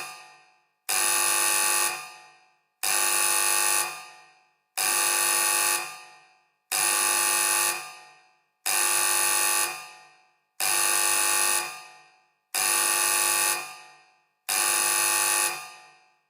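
A made-up emergency alert alarm tone: a blast of several steady tones at once, about a second long, repeated eight times about every two seconds, each blast fading away in an echo.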